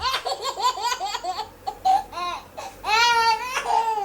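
Baby laughing: a quick run of short hiccupping laughs, about seven a second, then a long high-pitched squeal of laughter about three seconds in.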